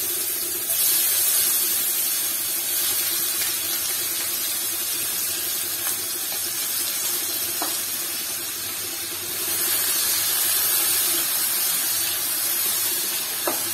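Sliced onions frying in hot oil in a non-stick frying pan: a steady sizzle, a little louder about nine seconds in, with a couple of faint clicks of a spatula.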